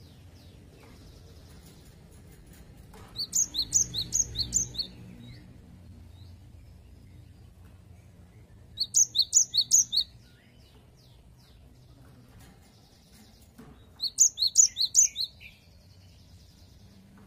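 Cinereous tit (gelatik batu) singing its 'wucit wucit' song: three quick bursts of six or seven high, sharp, repeated notes, a few seconds apart.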